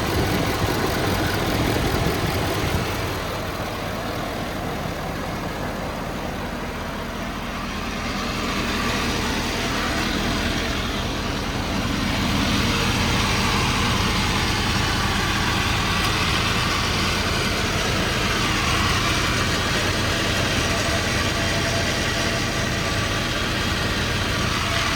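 Ford 6.7 Power Stroke turbodiesel V8 idling steadily in a 2012 F-550 service truck. It dips a little in level a few seconds in and grows fuller again after about twelve seconds.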